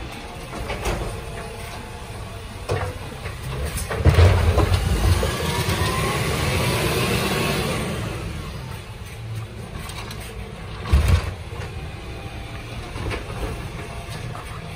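Side-loader garbage truck's diesel engine running, revving up from about four seconds in for several seconds as the hydraulic bin arm works, with a whine that rises and falls. A sharp thump comes about eleven seconds in, and a few lighter clicks and knocks are heard.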